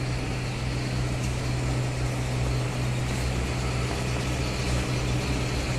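Air compressor running with a steady low hum.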